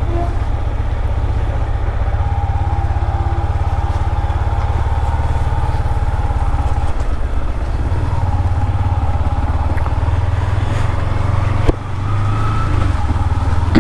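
Yamaha MT-15 V2's 155 cc single-cylinder engine running steadily at low speed while the bike is ridden slowly, with a brief dip near the end.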